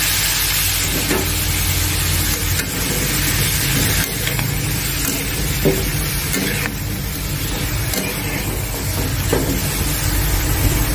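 Winged beans and sliced pork sizzling in a hot metal wok as they are stir-fried, with a few scrapes and knocks of a plastic spatula and chopsticks against the pan.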